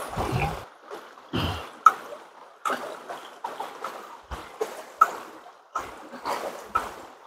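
Water splashing and dribbling in short, irregular bursts, one or two a second, with a couple of dull thumps near the start.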